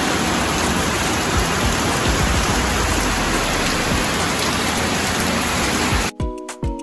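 Heavy rain pouring steadily onto a concrete yard and leafy plants. About six seconds in, the rain cuts off abruptly and music with plucked notes begins.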